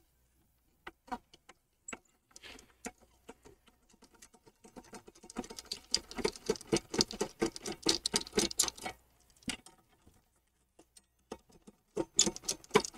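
Phillips screwdriver turning out a screw that holds the stand of an all-in-one computer: rapid small clicks and ticks, scattered at first, densest from about five to nine seconds in and again near the end.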